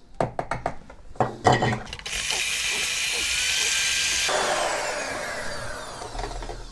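A few sharp clicks, then a SilverCrest electric hand mixer starts about two seconds in, its beaters whirring through egg batter in a glass bowl. A couple of seconds later the high whirr drops away and the pitch falls steadily as the motor slows.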